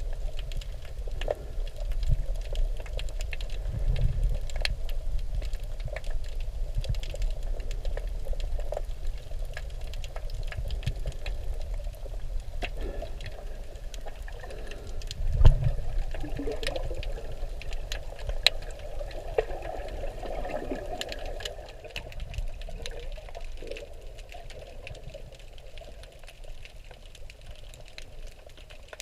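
Water heard through a submerged camera while snorkeling: a muffled, gurgling wash with a low rumble and many small crackling clicks, and one louder thump about fifteen seconds in.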